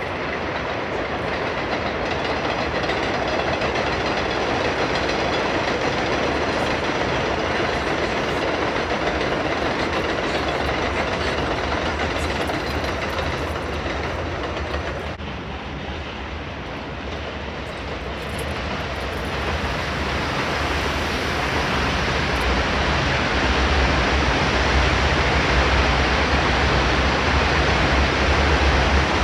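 R188 subway trains running along a steel elevated structure: steady noise that dips about halfway through, then builds louder and heavier in the low end toward the end.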